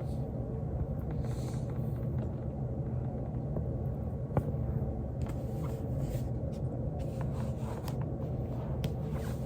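Low steady rumble of a body rolling back and forth on a foam roller, with faint scattered clicks and one sharp joint crack about four and a half seconds in.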